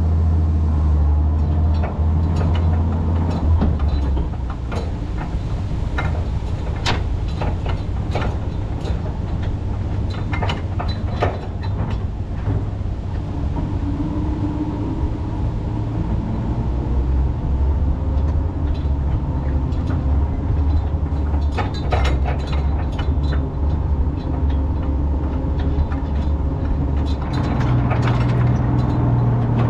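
Dodge M37 truck's flathead straight-six engine running as the truck drives slowly along a rough trail, with scattered sharp knocks and rattles from the bouncing body and wrecker gear. The engine note drops about four seconds in and climbs again near the end.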